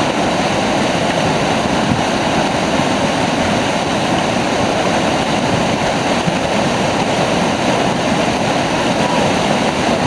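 Whitewater rapids pouring over rocks at a small river waterfall: a steady, unbroken rush of water.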